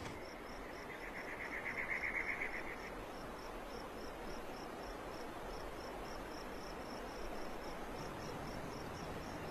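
Crickets chirping steadily in evening ambience, about four chirps a second. A second, lower and faster trill swells and fades during the first three seconds.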